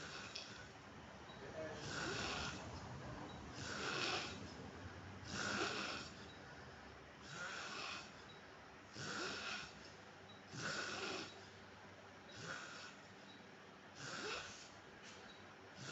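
A man snoring in his sleep, a rough snore roughly every two seconds, about nine in all.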